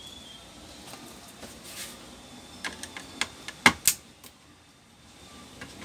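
Hand tools and a small circuit board handled against an induction cooker's plastic housing: light scraping, then a cluster of sharp clicks and taps about three to four seconds in, the loudest two close together.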